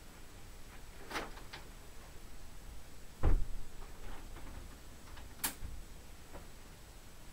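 Scattered sharp clicks and knocks from someone handling things at a closet, with one loud dull thump about three seconds in and a sharp click near five and a half seconds.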